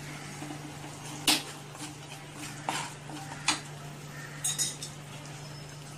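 Steel spoon stirring and knocking against a pan of roasted water chestnut flour in ghee: several sharp clinks, the loudest about a second in, and a pair of ringing metallic clinks a little past four seconds in. A steady low hum runs underneath.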